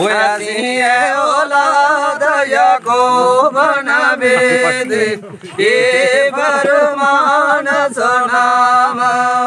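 A man chanting a Gojri verse narrative in a long, ornamented melody without clear words, breaking for breath about five seconds in, over a steady low held drone note.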